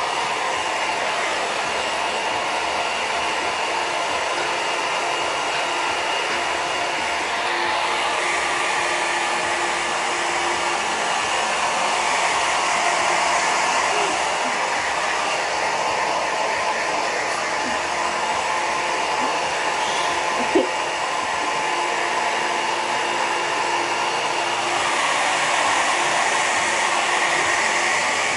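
Handheld hairdryer blowing steadily while a dog's wet fur is dried, its hiss swelling and easing a little as it is moved about. A single short knock about twenty seconds in.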